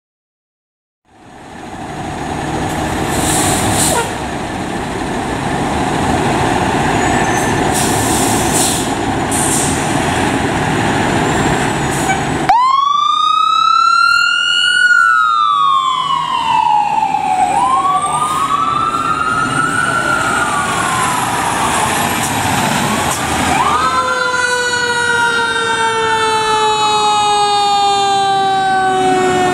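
Fire trucks' engines rumbling at the station, then a fire engine's mechanical Federal Q siren winding up fast and coasting down slowly, again and again, several wails overlapping as the apparatus pull out. Near the end a long wail falls slowly with a second siren under it.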